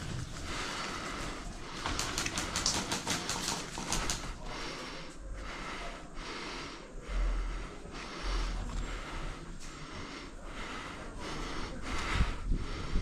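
A person breathing hard and steadily close to the microphone, about one breath a second, with a patter of small clicks and rustles a couple of seconds in.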